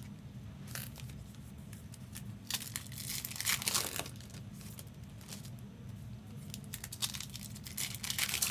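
Foil trading-card pack wrappers being torn open and crinkled, in several bursts, the loudest about three to four seconds in and again near the end, over a steady low hum.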